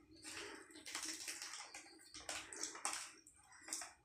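A metal spoon scraping at a pastry cake on a plate while a plastic chip packet crinkles under a hand, in a string of irregular rustling bursts.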